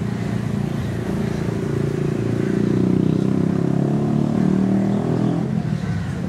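Motor vehicle engine running nearby in city traffic, a low rumble that swells from about two seconds in and fades near the end.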